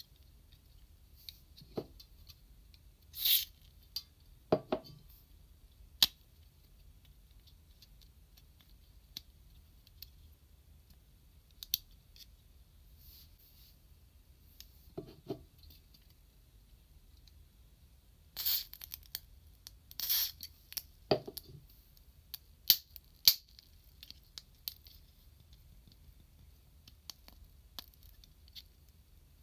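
Small plastic SMP GaoKing candy-toy figures, a shark and a white tiger, being handled and posed: scattered sharp clicks of plastic parts and joints and a few short scraping rustles, with long quiet gaps between.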